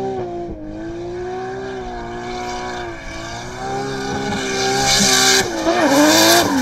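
Race car engine running hard with its note wavering, dipping and rising near the end, while a hissing tyre squeal grows louder through the second half.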